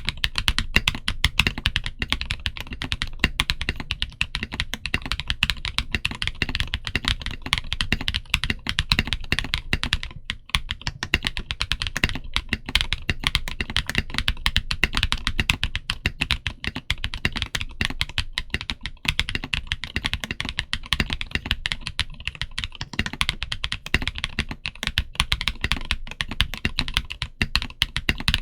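Continuous rapid typing on an Omnitype Bauer Lite mechanical keyboard in stock build, with MilkBone Frankenswitches (milky brown housings, Halo Clear stems, 62.5 g springs) under PBT Cherry-profile keycaps: a dense stream of keystrokes, broken by a brief pause about ten seconds in.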